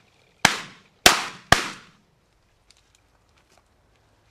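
Shotgun fire at a flushed pheasant: three sharp shots in quick succession, about half a second apart, each trailing off briefly, followed by a few faint clicks.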